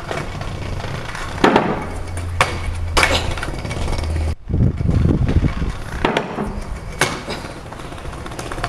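Stunt scooter wheels rolling over paving stones, with several sharp clacks as the deck and wheels hit the ground.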